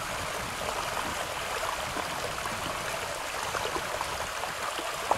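Shallow rocky stream running over stones: a steady rush of water, with one sharp click just before the end.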